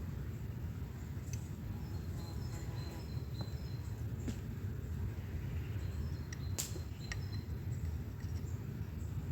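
Outdoor ambience: a steady low rumble with faint high bird chirps and a few sharp clicks, the loudest about two-thirds of the way through.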